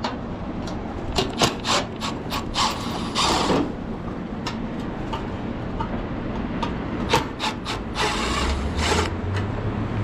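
Clicks, knocks and scraping of a Milwaukee M12 cordless driver and gloved hands working against the sheet-metal housing of a patio heater as screws are taken out. The driver runs briefly about eight seconds in.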